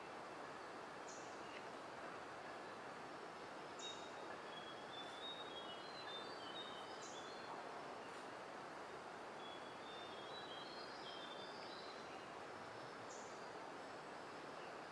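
Forest ambience: a steady background hiss, with a bird singing two runs of short, high, stepping notes and a brief high chirp repeating every few seconds.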